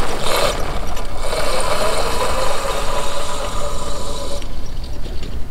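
Electric ride-on motor whining steadily over the rumble of tyres on stone pavers. The whine sags slightly in pitch and cuts off about four seconds in.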